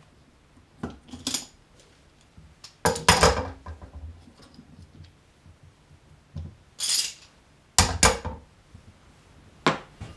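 Sharp metallic knocks and clinks on a Japanese plane (kanna) as its blade is worked in its oak block. About nine strikes come in small pairs, the loudest about three seconds in and again near eight seconds.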